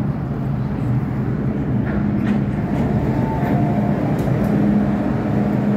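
Hong Kong MTR M-train electric multiple unit pulling into a station platform, heard through the platform screen doors: a steady low rumble of wheels on rail with the hum of its traction motors. A faint whine briefly rises above the rumble about three seconds in.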